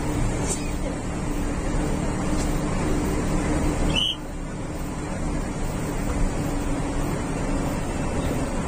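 A bus's engine and road noise as it drives, heard from inside the bus: a steady drone, with a brief high chirp about four seconds in.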